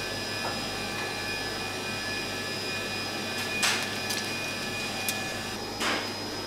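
Steady mechanical whirr of restaurant kitchen equipment with a faint constant hum. Two short scraping swishes come about three and a half and six seconds in, with a few small clicks between them.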